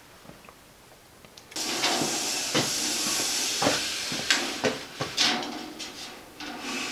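Steel tape measure being pulled out along a steel chassis rail, its blade rasping and hissing as it runs out, with scattered clicks and knocks. The sound starts suddenly about a second and a half in.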